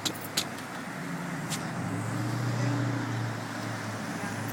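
An engine running steadily at idle, its low hum growing a little stronger after about a second, with a few sharp clicks in the first second and a half.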